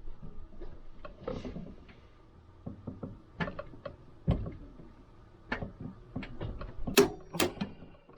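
Milwaukee M12 FUEL 1/2-inch cordless ratchet working loose a bolt torqued to 45 foot-pounds: a run of mechanical clicks and knocks, the loudest two about seven seconds in.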